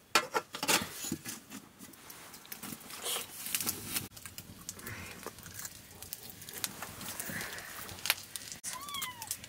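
A metal lid clatters down onto an iron wok in the first second. A wood fire then crackles under the pan, and a short animal call rising and falling in pitch comes near the end.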